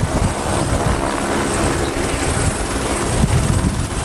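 Light single-rotor helicopter hovering low over a helipad: a steady beat of the main rotor blades with the engine running.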